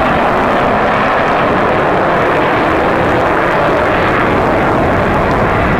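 Avro Vulcan XH558's four Rolls-Royce Olympus turbojets running in flight, a loud, steady jet noise as the delta-wing bomber banks away.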